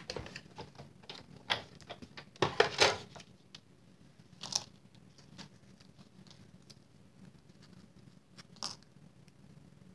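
Glimmer paper and a thin metal die being handled: crinkling and clicks, loudest in a cluster about two and a half seconds in, then sparse light clicks as die-cut snowflakes are pressed out of the paper.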